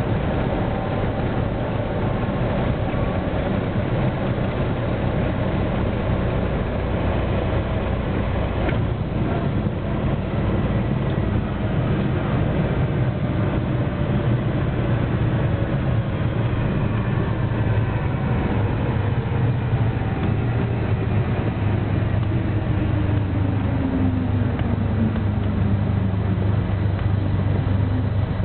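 Cessna 172's piston engine and propeller at low power, heard inside the cabin, steady through the landing and rollout. A faint tone slowly falls in pitch in the second half as the plane slows on the runway.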